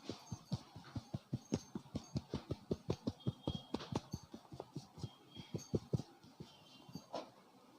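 A barber's hands striking in quick succession in a percussive head massage, about six dull pats a second, thinning out near the end.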